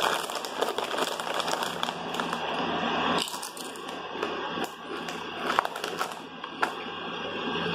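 Crinkling of a Flamin' Hot Doritos bag as a hand rummages in it for about three seconds, then the tortilla chips being chewed, with scattered sharp crunches.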